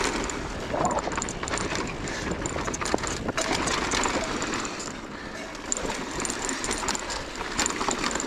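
Mountain bike descending a dirt singletrack: knobby tyres rolling over packed dirt and loose stones, with the bike's chain and frame rattling in a dense run of small clicks and knocks.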